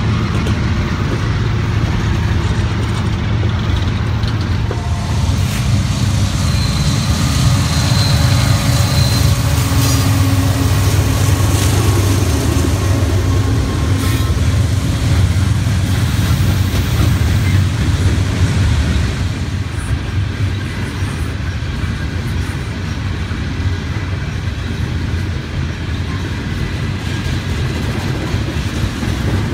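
CSX freight train of hopper cars rolling past: a steady rumble of steel wheels on the rails under the drone of the receding diesel locomotives, easing off about nineteen seconds in as the train pulls away. A thin high squeal sounds briefly about seven seconds in.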